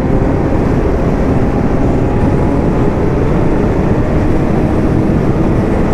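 Honda CBR1000RR inline-four engine pulling hard at speed after the throttle is opened, its note rising slowly. Heavy wind rush on the helmet microphone runs under it.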